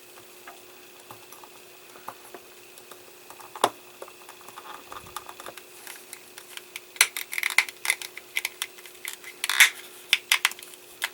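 Plastic model-kit wheel parts being handled and pressed together: scattered light clicks and taps, busier in the second half, over a faint steady hum.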